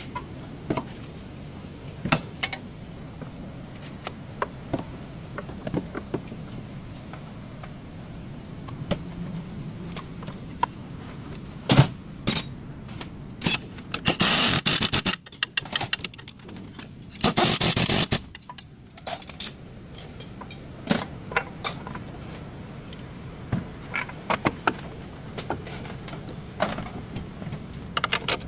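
Metal tools and parts clinking, knocking and scraping in irregular short clicks during CV joint work on a car, with two loud rattling bursts of about a second each midway through.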